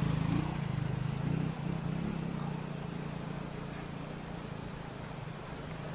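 Small motorcycle engine running close by, then fading away over the first second and a half as it rides off up the dirt road, leaving a fainter steady engine hum.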